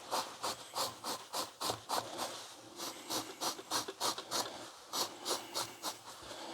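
Shaving razor, its guard taken off, scraped in quick short strokes over a garment, about three strokes a second with brief pauses, shaving off pills and lint.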